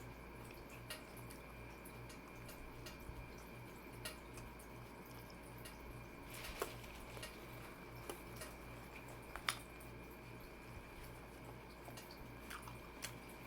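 Close-miked chewing of a meatball marinara sub: soft, wet mouth clicks and squelches scattered irregularly, the sharpest about six and a half and nine and a half seconds in, over a faint steady hum.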